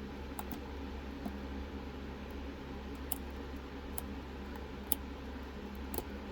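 Light, scattered clicks of a lock pick working the pins of a DOM ix6 KG lock, about one a second, over a steady low hum.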